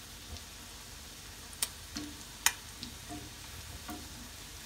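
Beef shami kababs shallow-frying in hot oil in a small pan: a steady sizzle with a few sharp pops of spattering oil, the loudest about a second and a half and two and a half seconds in.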